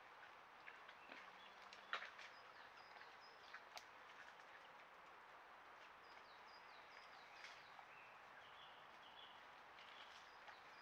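Faint songbird song: short phrases of quick high whistled notes, stepping down in pitch, repeated several times over a quiet hiss. Scattered soft clicks, the sharpest about two seconds in.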